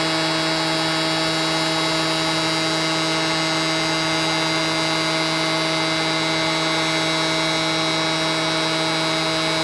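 Electric s'mores maker's hot-air blower fan running steadily with its heater switched on: a constant motor hum over a hiss of blowing air.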